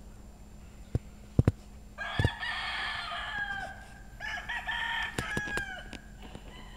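Hatch gamecock crowing twice, two drawn-out crows in a row, after a few sharp knocks.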